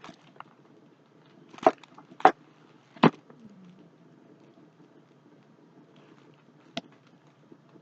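A few short, sharp knocks and clicks, four in all and spread over several seconds: cardboard packaging and its contents being handled by hand.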